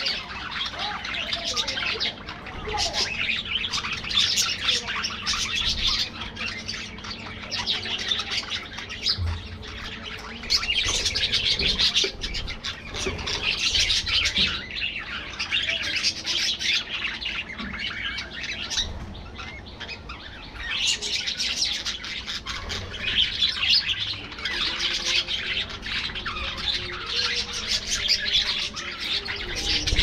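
A flock of budgerigars chattering and chirping together: many rapid, high chirps overlapping with hardly a break, easing briefly a couple of times.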